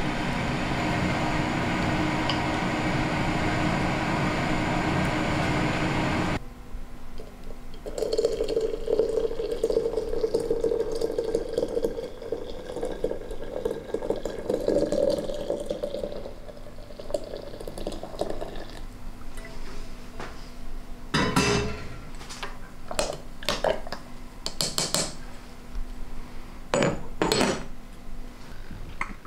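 Water poured from a kettle into a ceramic teapot, filling for about eight seconds, followed by a series of sharp china clinks as the teapot's lid goes on. It opens with a steady rushing noise with a hum that cuts off suddenly about six seconds in.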